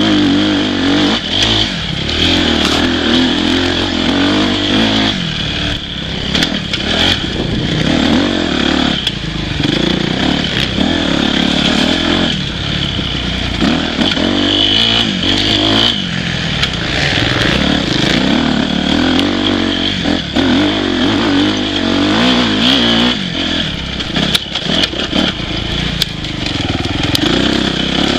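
Dirt bike engine revving up and down over and over as it is ridden along a rough trail, with frequent clatter and knocks from the bike over the bumps.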